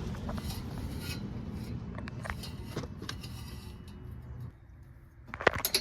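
Small metal clicks and scraping from hand tools and exhaust hanger hardware being handled, with a quick cluster of sharp clicks near the end, over a low rumble that drops away after about four and a half seconds.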